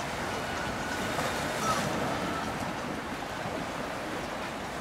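Steady rushing wash of river water and wind, with boat traffic on the water.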